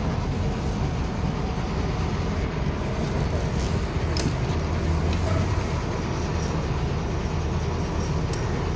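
Inside a LiAZ-5256.45 city bus: the steady low rumble of the engine and running gear heard through the cabin, with a couple of brief rattles about four seconds in and again near the end.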